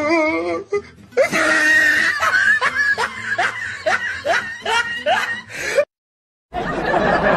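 A person laughing in a run of short rising bursts, about two a second. The sound cuts out briefly near the end.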